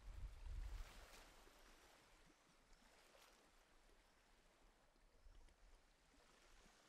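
Near silence: a faint, steady background hiss, with a brief low rumble in the first second.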